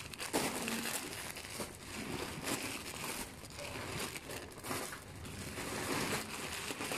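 Plastic packaging crinkling and rustling as parcels are handled and unwrapped, a steady run of irregular crackles.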